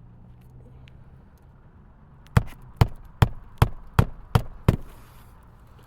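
Hammer driving a roofing nail through an asphalt shingle at the glue seal with seven quick, sharp strikes, about two or three a second, starting a little over two seconds in.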